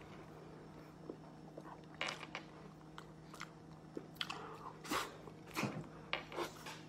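Mouths eating pumpkin pie with whipped cream straight off the plate, hands-free: faint, scattered wet smacks and chewing noises about once a second.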